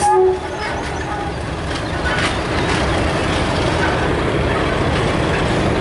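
Class 50 diesel-electric locomotive's English Electric 16-cylinder engine running as it approaches, a steady low rumble that grows a little louder about two seconds in. A brief loud tone sounds right at the start.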